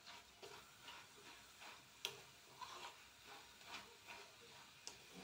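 Faint clicks and scrapes of a metal spoon against an iron pan as grated carrots cooking in milk are stirred, about two a second and irregular, with one sharper click about two seconds in.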